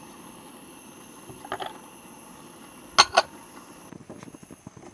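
Metal cooking utensils clinking: two sharp clinks about three seconds in, with lighter clicks a little earlier and small faint knocks near the end.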